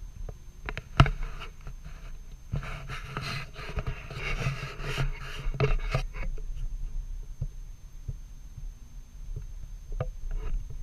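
Handling noise on a handheld action camera: a sharp knock about a second in, then a few seconds of scraping and rubbing close to the microphone, fading to faint ticks.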